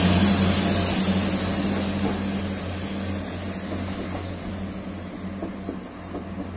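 A Class 175 diesel multiple unit moving away, its steady low engine hum and high hiss fading as it recedes.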